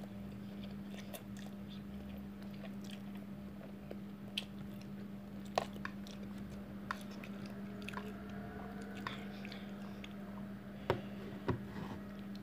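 A person chewing mouthfuls of instant fried noodles, with a few sharp clicks of a metal fork against a plastic container, over a steady low hum.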